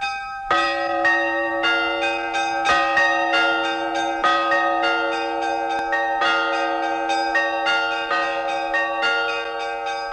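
Church bells rung by hand with ropes: several bells of different pitch struck over and over, about two strikes a second in an uneven rhythm, their tones ringing on and overlapping.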